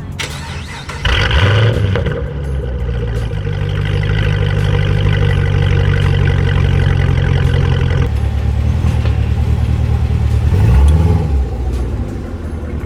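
Fifth-generation Chevrolet Camaro running and pulling away at low speed, with a few faint clicks from the rear wheel and axle area. The owner suspects a loose CV axle nut or a worn thrust washer at the rear hub.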